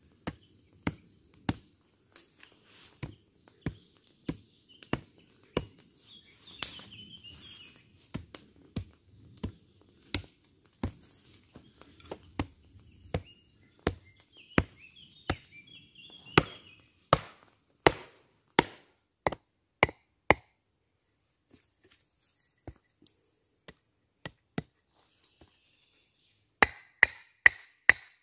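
Repeated sharp chopping blows of a blade into wood, about one and a half a second, as a spoon blank is roughed out. The blows thin out and grow fainter past the middle, then come in a quick run of several near the end.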